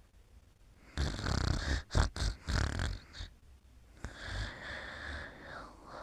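Snoring: a loud, rattling snore starting about a second in and lasting about two seconds, then a softer drawn-out one about four seconds in.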